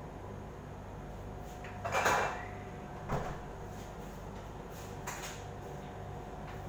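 Off-screen kitchen handling sounds over a steady low hum: a short clatter about two seconds in, a sharp knock about a second later, and a faint click near five seconds.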